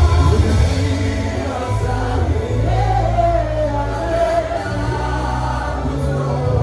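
Live gospel worship music played through a PA: voices sing a melody over a band with held deep bass notes.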